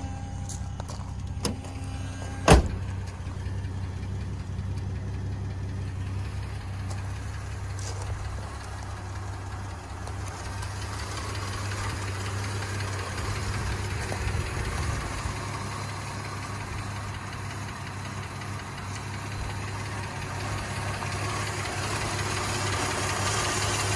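1971 Dodge Dart Swinger's 225 cubic-inch slant six idling steadily, freshly restored and running well. A single sharp bang about two and a half seconds in, and the engine sound grows louder near the end.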